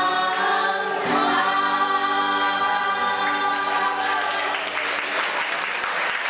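A small group of male and female voices singing into microphones, holding one long chord for about four seconds as the song closes. Clapping and applause break out near the end.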